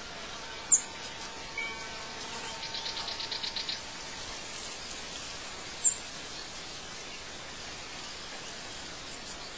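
Night-time outdoor ambience of insects and birds: a steady background hiss, a short high chirp about a second in and again near six seconds, and a quick pulsing trill of about ten pulses a second around the third second.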